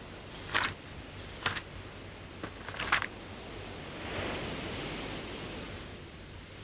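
Three brief, sharp clicking or scraping noises about a second apart, then a rushing whoosh that swells and slowly fades over about two seconds, over a steady hiss.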